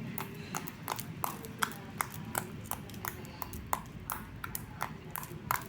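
Slime being squeezed and poked by hand, giving off irregular sharp clicks and pops, a few each second, as air pockets burst.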